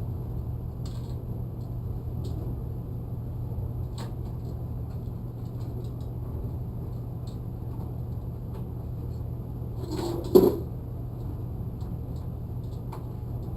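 Handling noises over a steady low background hum: a few faint light clicks, then one loud clunk about ten seconds in, as the portable bandsaw and its packing are handled.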